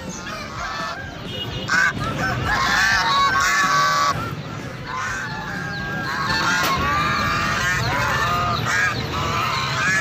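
Many caged market birds and poultry calling at once in overlapping short calls. The calls are loudest from about two to four seconds in and again from about six to nine seconds in.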